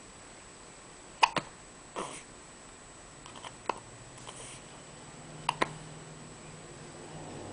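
Hiccups: a string of short, sharp hiccups at uneven intervals a second or two apart, the loudest a little over a second in and a quick double near the end.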